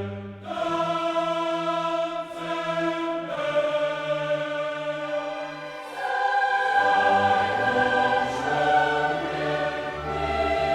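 Choral music: a choir singing long held chords that change every second or few, getting fuller and louder about six seconds in.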